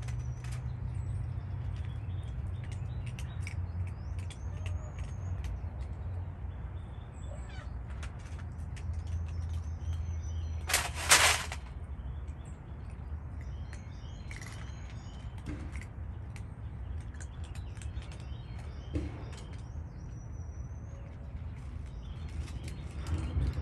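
Small birds chirping and calling on and off over a low steady rumble, with one brief loud hiss-like burst about halfway through.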